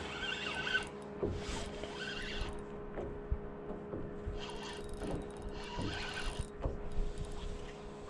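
Spinning reel worked in about four short whirring bursts as a hooked fish is played on a hard-bent rod, over a steady low hum.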